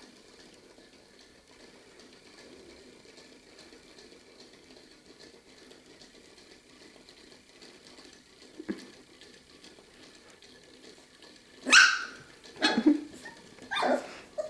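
Six-week-old puppy barking three times in quick succession near the end, short yaps about a second apart. Before that there is only a faint background hush and one soft knock about halfway through.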